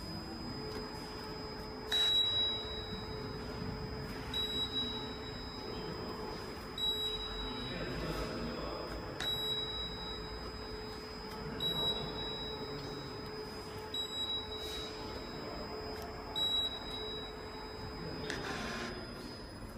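A checkweigher's conveyor running with a steady hum, with a short, high-pitched chirp about every two and a half seconds, seven times in all, as products pass over the weigh belt and the connected receipt printer logs each weight. A plastic tray rustles near the end.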